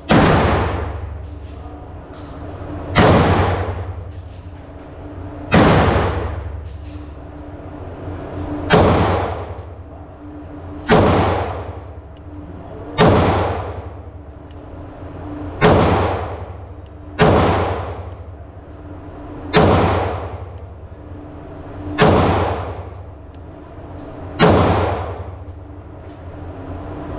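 Beretta APX pistol in .40 S&W fired in slow, single shots, about eleven in all, two to three seconds apart. Each report rings out and dies away over a second or more.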